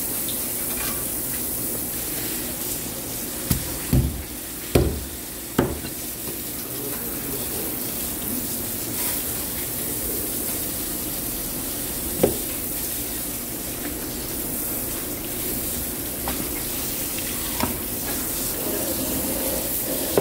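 Water spraying from a hose onto a fish and a plastic cutting board while it is scaled and cleaned with a knife, a steady hiss. A cluster of sharp knocks about four to six seconds in and another near twelve seconds, from the knife or fish striking the board.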